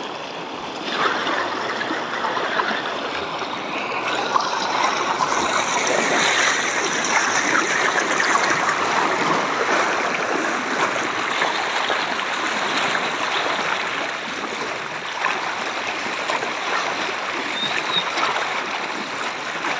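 Muddy floodwater flowing fast over a submerged road, a steady rush of water with gurgling.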